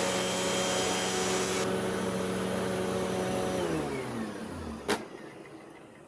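Hoover WindTunnel T-Series upright vacuum running with its brush roll on, the agitation of a brush roll set at a medium height. About three and a half seconds in, the motor's pitch falls as it winds down, and there is a single sharp click near the end.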